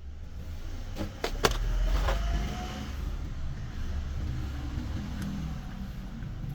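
Truck engine running with a steady low rumble, with a few sharp clicks or knocks about a second in.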